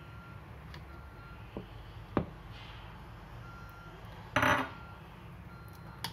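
Kitchenware knocks while flour is tipped into a plastic-rimmed mesh sieve: a light knock, then a sharp one about two seconds in, and a louder short clatter of crockery and sieve about four and a half seconds in, over a low steady hum.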